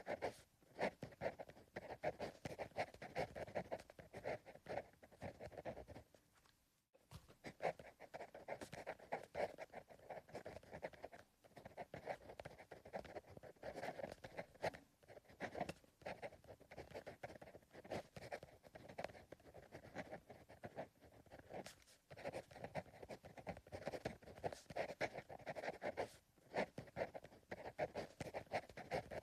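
Pencil writing on paper: a continuous run of soft, quick scratching strokes, with a brief pause about six seconds in and a few short breaks.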